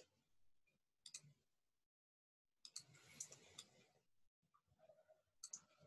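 Near silence with a few faint computer mouse clicks scattered through it, a short cluster of them about three seconds in.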